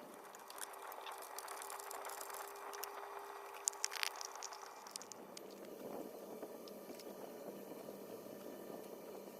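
Faint handling noises of small metal lantern parts as the generator is fitted back on, with a few sharp clicks about four seconds in.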